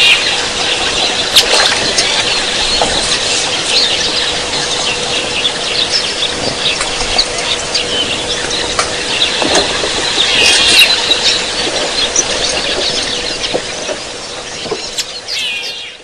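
A flock of bee-eaters calling: many short, sharp chirps overlapping, with a busier burst of calls about ten seconds in, over a steady low electrical hum.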